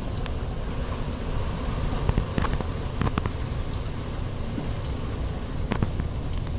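Heavy rain falling steadily, with scattered sharp taps of drops striking close by.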